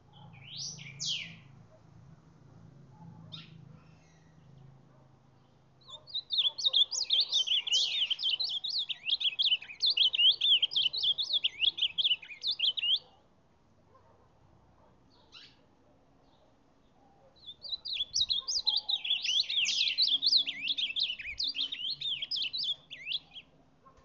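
Ultramarine grosbeak (reina mora) singing: two short rising notes near the start, then two long, fast warbled phrases of about six seconds each, the first starting about six seconds in and the second at about eighteen seconds.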